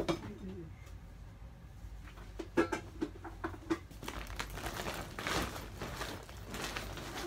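Clear plastic storage bag crinkling and rustling as clothes are pushed into it, with a few sharp clicks and knocks between about two and a half and four seconds in.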